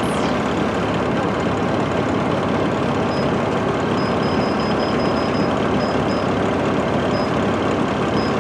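Steady ride noise inside a 2010 MCI D4500CL coach under way: its Cummins ISM diesel engine running together with tyre and road noise.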